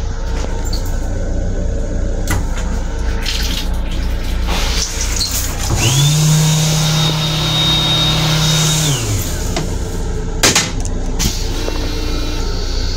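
Train toilet flushing: the flush motor spins up with a rising whine, runs steadily for about three seconds alongside a hiss, then winds down, over the steady rumble of the moving train. A sharp click follows a little after.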